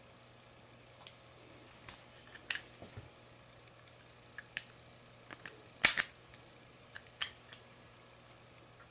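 About a dozen light clicks and taps of small hard objects, spread irregularly, the loudest a sharp double click about six seconds in, over a faint steady hum.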